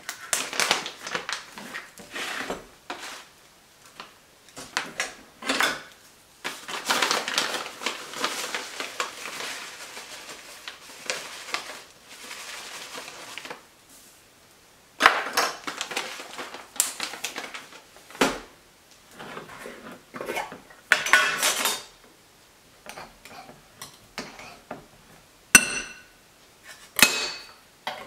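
Kitchen food-prep handling: a packaging bag crinkling and a dry mix being poured into a glass bowl, in a run of rustling bursts through the first half. Then come sharp clinks of glass and a jar, a couple ringing briefly near the end.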